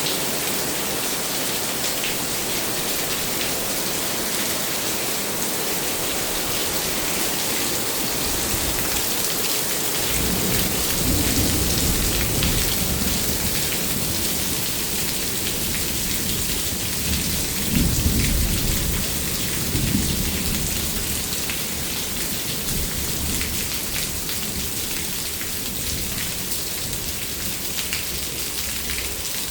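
Steady heavy rain falling, with thunder rumbling in about a third of the way through, swelling twice and loudest a little past the middle, then dying away while the rain keeps on.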